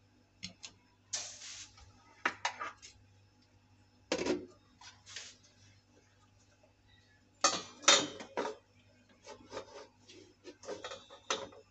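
Metal cupcake tray being set down onto the perforated steel stand inside a large preheated pot used as a stovetop oven, metal clattering and knocking on metal as it is placed and shifted into position. A heavier knock comes about four seconds in, and a cluster of louder clatters comes around eight seconds in.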